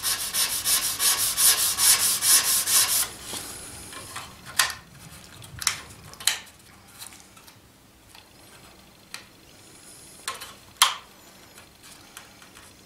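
Sanding block rubbed quickly back and forth over the wooden plank strips of a model yacht hull, about five strokes a second for the first three seconds, then a few single strokes.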